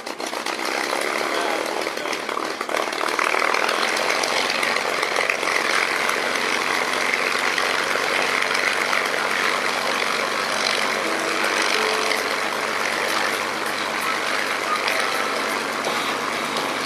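P-51 Mustang's V-12 piston engine running at low power as the fighter taxis, its propeller turning: a loud, steady, rough drone that grows louder about three seconds in.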